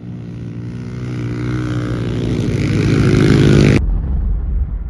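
Several pit bike engines running as the bikes ride across the ice toward the camera, growing louder, then cut off suddenly a little under four seconds in. A low rumble follows.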